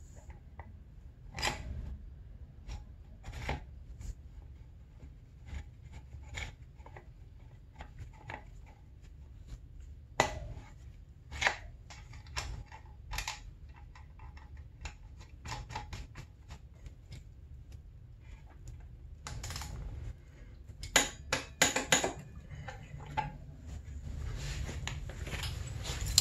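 Hand tools clinking and clicking against the dirt bike's front fork lower and axle, in scattered single ticks and short quick runs. A cluster of louder knocks and rubbing comes near the end.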